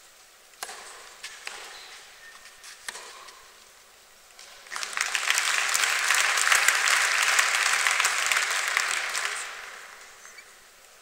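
Tennis ball struck by rackets three times in a short rally, sharp pops with a little echo. Then an audience applauds: the applause starts about five seconds in, holds for about four seconds and fades out.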